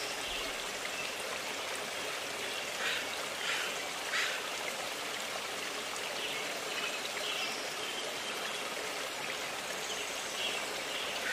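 Steady rush of a flowing stream. A few short, sharper sounds stand out about three to four seconds in.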